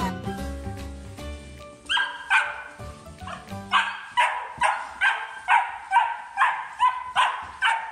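Puppy barking over and over at about two barks a second, starting about two seconds in, over background music.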